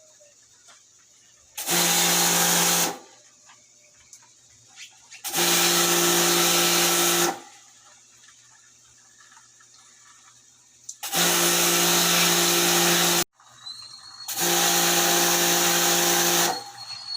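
Small electric pressure washer spraying water in four short bursts of about two seconds each, its motor whining steadily under the hiss of the spray, with quiet gaps between as the trigger is released.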